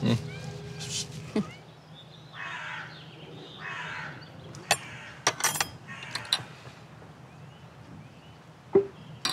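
A crow cawing three times, harsh calls about a second or two apart, with small birds chirping and a few sharp clicks in the background.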